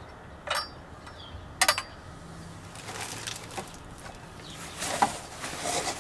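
Handling of the canopy mount's clamp parts: two sharp clicks in the first two seconds, then rustling with a few soft knocks.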